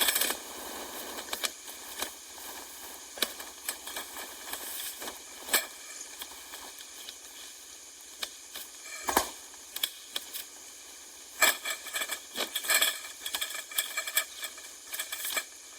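Scattered sharp clicks, taps and rustles of a tarp shelter and its fittings being pitched, irregular and bunched near the end, over a steady faint hiss.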